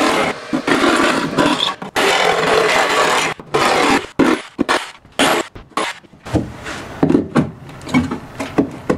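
Power saw cutting out an opening in thin wood wall paneling in a few long runs with short pauses. This is followed by a string of knocks and scrapes as a metal electrical box is fitted into the hole.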